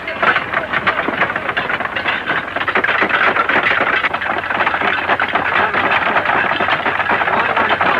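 Noisy clattering commotion of a crowd of men scrambling over benches to the mess tables, with many sharp knocks and a continuous din.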